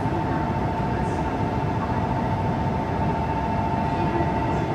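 E8 series Shinkansen train standing at the platform: a steady hum and rumble with a constant high-pitched tone over it.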